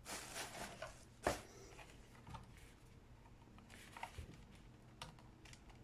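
Faint handling of cardboard and paper packaging: soft rustling with a few light taps and knocks, the sharpest about a second in.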